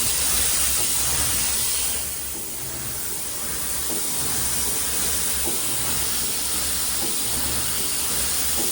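Automatic rotary silkscreen printing machine for glass bottles running, with a steady hiss over a low mechanical hum and a few faint clicks. The hiss dips briefly about two seconds in.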